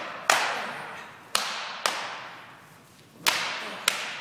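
Jiu-jitsu belts lashed across a bare back in a stripe-promotion belt whipping: about six sharp cracks at uneven intervals, each ringing on and fading in the hall.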